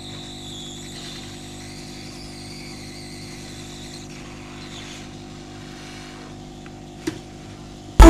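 Hot air rework gun blowing steadily, its fan running with a high whine, as the worn charging jack is heated off a phone's circuit board. A single short click comes near the end.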